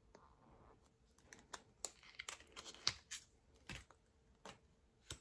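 Oracle cards handled by hand: faint, irregular clicks and rustles of cardstock sliding and tapping as a card is drawn off the deck and moved to the back.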